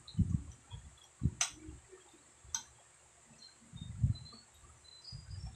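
Close-up eating sounds: chewing and mouth noises with soft low thuds, and two sharp clicks of a metal fork against a glass plate, about a second and a half in and again a second later.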